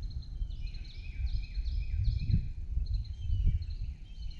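Many songbirds chirping in short, repeated falling notes over a steady low rumble of wind on the microphone.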